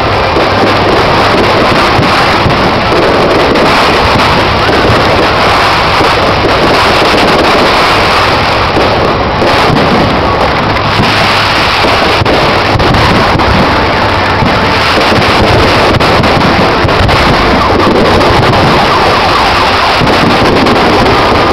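Fireworks barrage: a dense, unbroken run of bangs and crackles, very loud and steady in level throughout.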